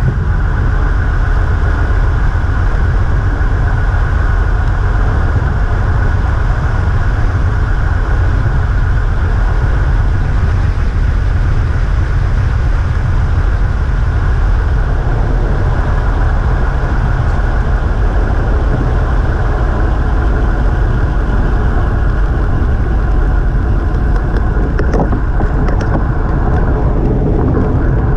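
Steady wind rush and low rumble on an action camera's microphone from a road bike coasting fast downhill, with road noise underneath.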